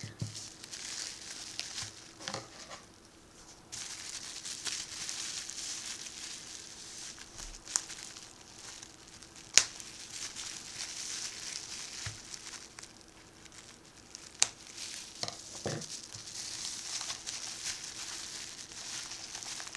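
Plastic bubble wrap crinkling and rustling as it is handled and cut open with scissors, with a few sharp clicks along the way.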